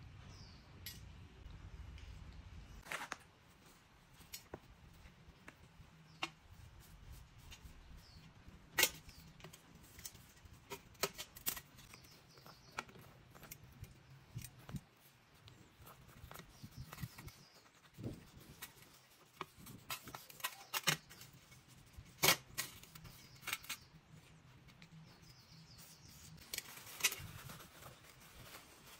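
Grimy Vertu Signature phone being handled and wiped with a cloth over a stainless steel tray: soft rubbing broken by scattered sharp clicks and knocks as the metal-framed phone is turned and set against the tray.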